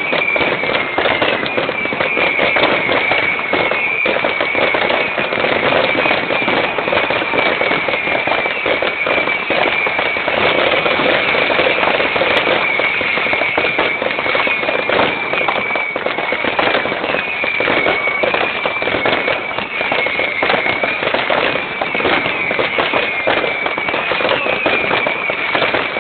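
Fireworks display: a dense, unbroken barrage of bangs and crackling, with a wavering high whistle coming and going over it.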